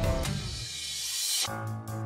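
Background music: a swelling rise that cuts off about a second and a half in, where a new passage with a steady beat begins.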